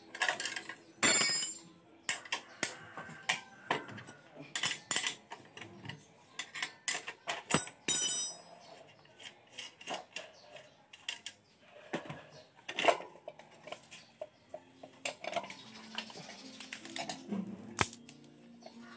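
Metal parts and hand tools clinking and tapping irregularly as a motorcycle's rear hub and sprocket are fitted by hand. A few sharper clinks ring briefly, about a second in and again about eight seconds in.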